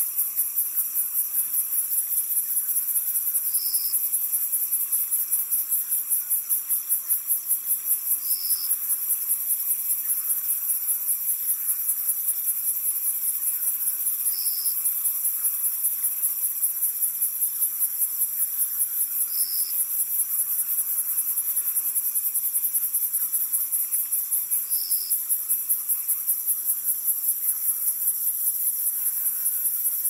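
Swamp ambience of crickets and other insects: a dense, very high-pitched chorus pulsing evenly, about five pulses a second, with a short, lower chirp repeating about every five seconds.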